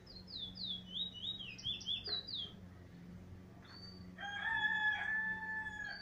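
A caged bullfinch sings a quick run of about ten sweet, downslurred whistled notes. About four seconds in, a rooster crows in a long, steady, lower call that is the loudest sound here.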